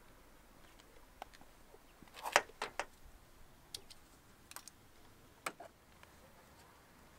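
Car-tent strap clips and buckles clicking and tapping against the car body as the straps are unhooked from the door and wheel arch: scattered small clicks, with a quick cluster of louder ones about two and a half seconds in.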